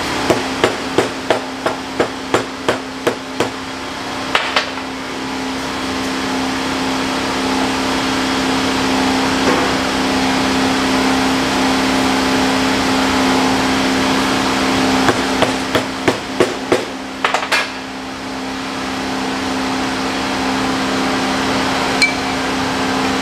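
Hammer blows on a disc harrow bearing hub as its dust cap is driven out: a quick run of about ten sharp metallic strikes, roughly three a second, then two more a second later, and another run of strikes about fifteen seconds in. A steady hum runs underneath.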